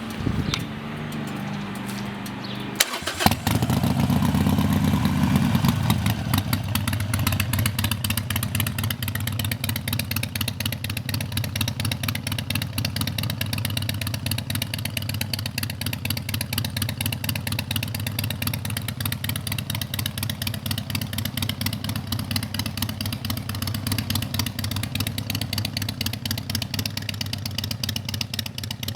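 Harley-Davidson Sportster Iron 883's air-cooled V-twin with a custom exhaust, started about three seconds in. A few sharp clicks come first, then it catches, runs up briefly and settles into a steady idle with an even, pulsing beat.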